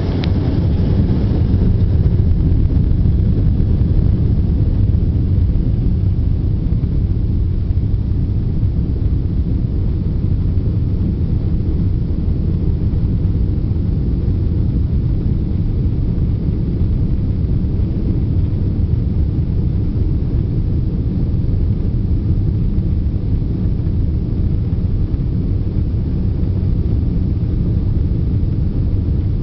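Cabin noise inside a Boeing 777-200 rolling on the ground: a steady low rumble of the engines and the wheels on the pavement, holding even throughout.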